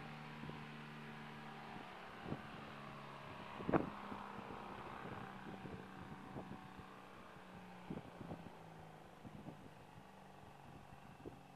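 Kitfox light aircraft's engine running steadily at low power at a distance, a faint even drone, while it waits at the end of the runway before takeoff. A few brief thumps on the microphone, the loudest nearly four seconds in.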